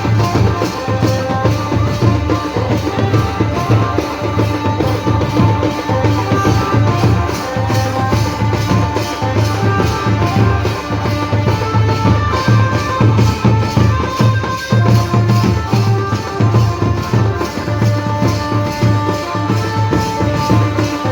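Band baja playing a dance tune: drums keep a steady, driving beat under a melody of held notes, loud throughout.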